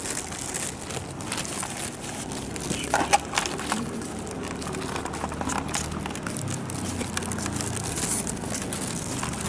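Rustling and small clicks of a handheld camera carried while walking along a town street, over a steady street background with a faint vehicle hum in the middle; a brief clatter about three seconds in.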